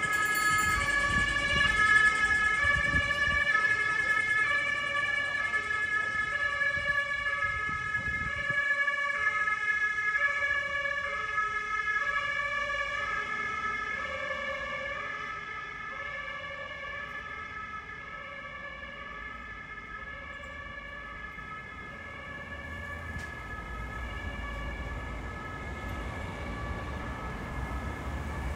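Two-tone emergency vehicle siren alternating between a high and a low note, loud at first and then fading as it moves away, with low traffic rumble underneath.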